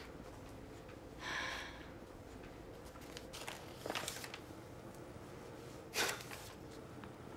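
Quiet room tone with a faint steady hum, broken by a soft breath-like noise about a second in, a few faint ticks around four seconds, and a short rustle at about six seconds.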